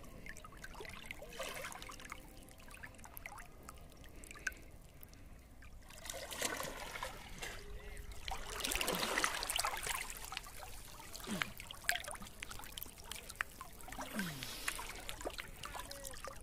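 River water sloshing and trickling around a person wading chest-deep and handling floating plastic bottles, with louder splashing about eight to ten seconds in.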